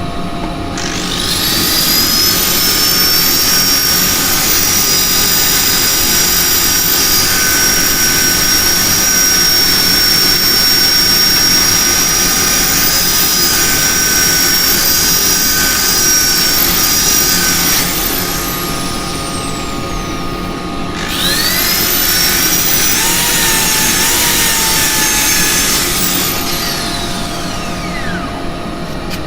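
High-speed electric motor of a handheld power tool spinning up with a rising whine, running steadily for about seventeen seconds, winding down with a falling pitch, then starting again for about five seconds and winding down. A low steady hum runs underneath throughout.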